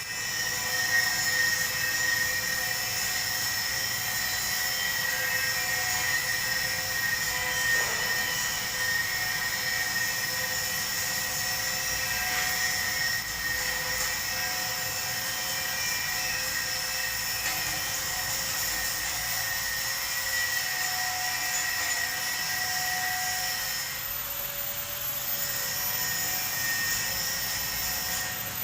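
Electric arc welding on a pipe: a steady hiss with a constant high-pitched whine from the welding machine, carrying on without a break and dipping briefly near the end.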